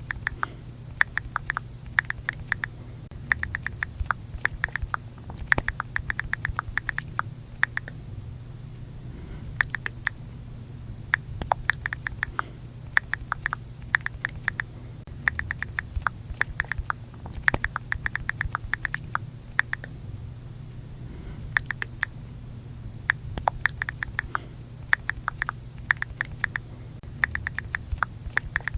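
iPhone keyboard click sounds from typing on the touchscreen, coming in quick runs of taps with short pauses between them, over a steady low hum.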